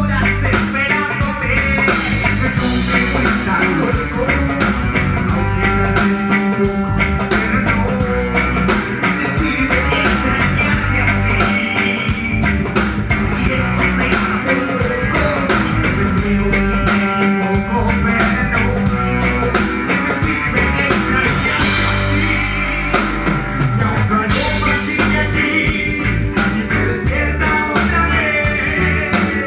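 Live band music: guitar and drum kit playing a steady beat, with a voice singing.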